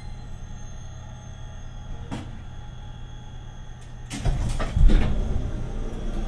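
Sliding passenger door of a limited express train opening at a station stop: a steady low hum from the standing train, then about four seconds in a sudden loud rush and heavy clunks as the door slides open.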